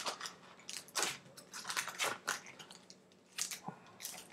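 Trading-card pack wrapper and cards being handled, crinkling and rustling in short irregular bursts, the loudest about a second in and again at about three and a half seconds.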